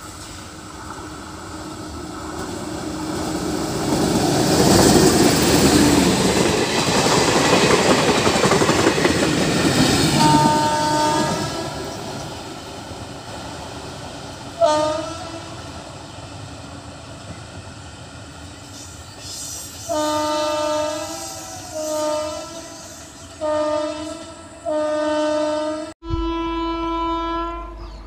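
Indian Railways electric-locomotive trains: a train runs past at speed with a loud rush of wheel and rail noise that builds over the first few seconds and fades after about ten. Then electric locomotive horns sound, a short blast, a series of four short and long blasts, and one more long blast near the end.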